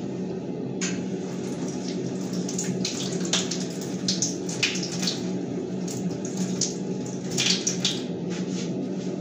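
Water running from a kitchen tap and splashing, with irregular louder splashes.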